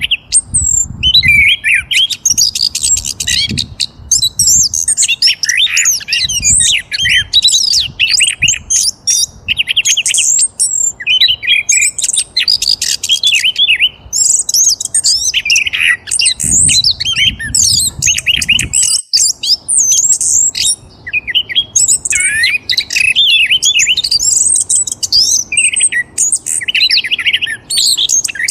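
Many small birds chirping and twittering continuously, their quick high calls overlapping.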